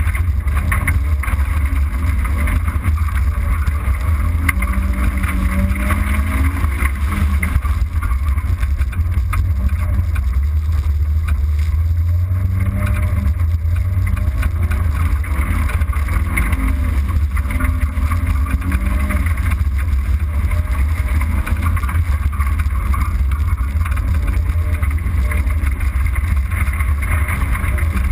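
Rally car driving fast on a dirt track: a loud, steady low rumble of engine and road noise, the engine pitch rising and falling faintly.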